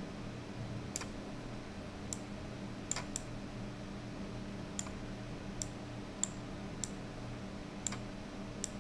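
Computer mouse clicking about ten times at irregular intervals, over a faint steady hum.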